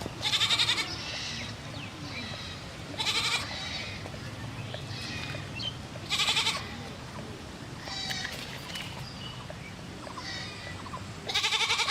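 An animal calling repeatedly: four loud, quavering calls a few seconds apart, with fainter calls in between.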